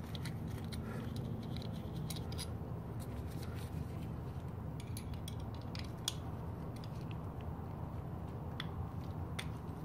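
Scattered small metallic clicks and ticks of a hand tool turning screws out of a small plate on a mid-drive e-bike motor, over a steady low hum.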